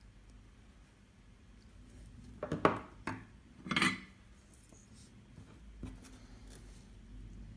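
Small metal tools and parts handled on a soldering bench: two short bouts of light clinking and rattling, about a second apart, near the middle.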